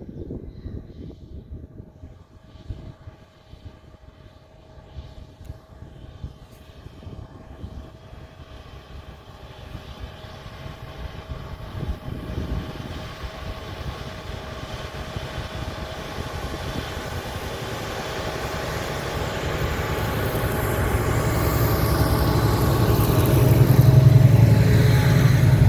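Fendt tractor engine pulling a plough, growing steadily louder as it draws closer and loudest near the end. Wind buffets the microphone during the first several seconds.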